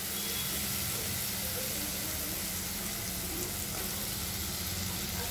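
Onion and spice masala sizzling steadily in hot oil in a pan, as boiled banana flower is added to it.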